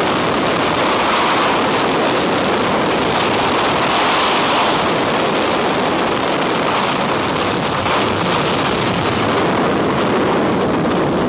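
Freefall wind rushing over the microphone of a skydiver's camera: a loud, steady rush of noise.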